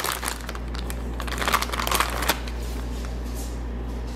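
Plastic sliced-cheese package crinkling and rustling as a slice is pulled out: a flurry of quick crackles for the first two seconds or so, then only a low steady hum.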